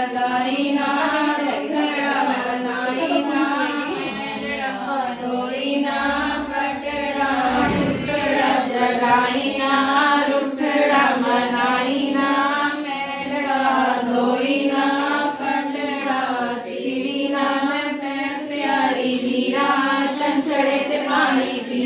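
Women's devotional singing in a chant-like melody over a steady held drone.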